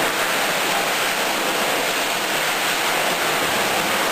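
Steady, even rushing noise, loud and unchanging, with no distinct events in it.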